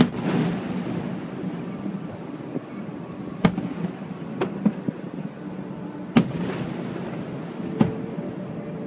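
Aerial fireworks bursting overhead: several sharp bangs a couple of seconds apart, each trailing off in a rumbling echo.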